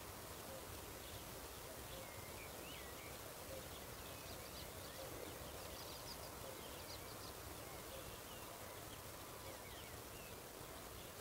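Faint rural field ambience: many small birds chirping and calling in short scattered notes over a steady background hiss, with a faint low note repeating about once a second.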